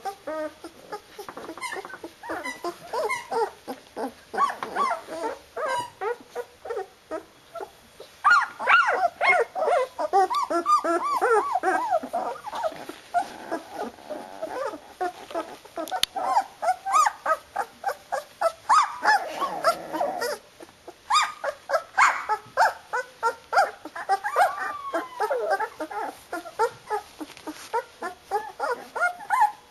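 Newborn flat-coated retriever puppies, about two weeks old, crying and yelping in many short, rapid calls. Several pups call at once, and the calls overlap most thickly about a third of the way in.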